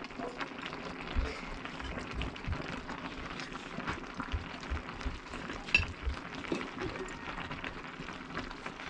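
Crackling and sizzling of a hot pot cooking over a campfire, with many small sharp crackles and a few soft low thumps.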